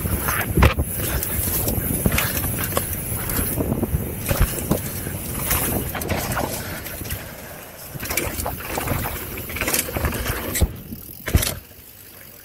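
Downhill mountain bike ride heard from a bike- or body-mounted camera: wind rushing over the microphone, tyres rolling on a dirt trail, and the bike rattling and knocking over bumps. It dies down near the end.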